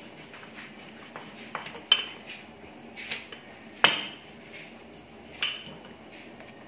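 Wooden rolling pin knocking and clacking against a marble counter while rolling out dough: four sharp clacks spaced about a second apart, the loudest near the middle, with softer taps between.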